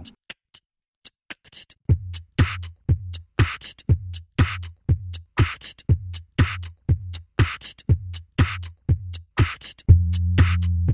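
Instrumental music with a drum-machine beat. It starts after about two near-silent seconds, with a low kick about twice a second and sharper hits between. A sustained bass chord comes in near the end.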